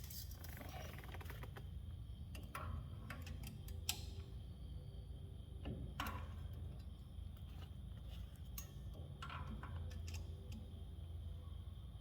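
Scattered small metallic clicks and clinks of brake shoes, springs and hand tools being handled during a drum brake job, with two sharper knocks about four and six seconds in, over a steady low hum.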